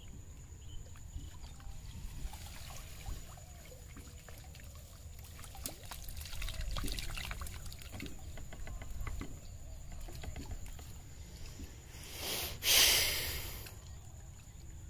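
Water splashing and trickling as a fishing net is worked in shallow floodwater, with scattered small splashes and drips. Near the end, a loud rushing splash lasts about a second as water pours off the net.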